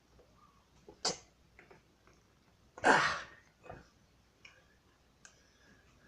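Light clicks and knocks from hands working an espresso machine piston and its zip-tied gasket into the cylinder. A sharp click about a second in, and a short, loud breathy burst about three seconds in.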